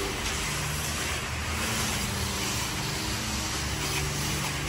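High-pressure car wash wand spraying water onto a car's body and wheel: a steady hiss of spray with a steady low hum underneath.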